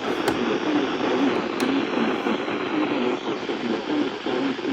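Weather radio broadcast heavy with static hiss, with a low, wavering voice faintly heard under the noise.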